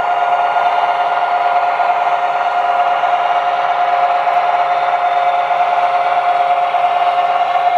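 O scale model freight train rolling past on three-rail track: a steady whirring hum with one held tone.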